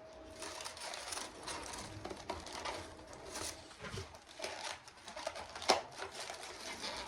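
Irregular light clicks and rustles of food and takeout packaging being handled while eating, with one sharper click a little before the end.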